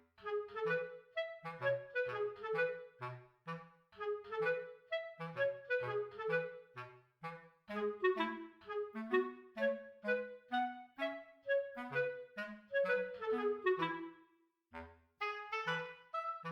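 Background music: a melody of short, detached notes on a wind-like instrument over a bass line, with a brief break near the end.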